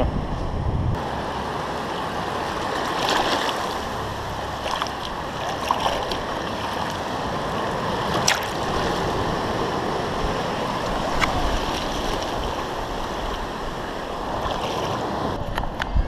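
Small ocean waves breaking and washing up the beach right at the camera, a steady rush of surf and foaming water with a couple of sharp splashes partway through. Wind buffets the microphone in the first second.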